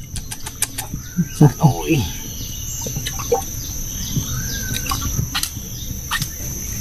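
A steady, high-pitched insect drone runs throughout, with a few short chirping bird calls over it. Scattered light clicks and knocks come from fishing tackle being handled in the boat.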